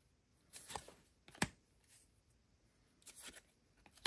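Glossy trading cards being flipped through by hand, each card sliding off the stack: a few short swishes and sharp flicks of card against card.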